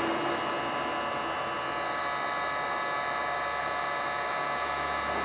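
Steady electric hum with a high whine made of several fixed tones, like a small electric motor running at constant speed.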